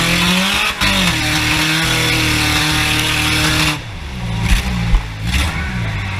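Junk race car's engine revving up and down under a heavy rushing noise. The noise drops away about two-thirds of the way through, leaving the engine and a few sharp knocks.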